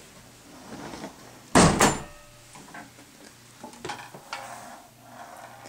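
A sharp double bang, two knocks close together about one and a half seconds in, then a few lighter clicks and knocks.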